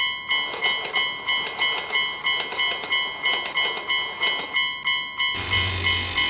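Railroad crossing warning bell dinging about three times a second, while a train passes with a rattling clatter of wheels from just after the start until about four and a half seconds in.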